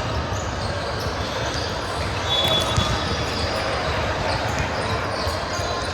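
Basketball bouncing on a hard gym floor: repeated low thuds over echoing hall noise and distant voices, with a brief high squeal a little over two seconds in.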